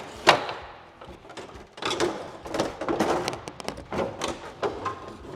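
A thin black fiber (basalt composite) race fairing being handled and worked into place on the motorcycle: one sharp knock just after the start, then a run of irregular knocks, taps and scraping rubs.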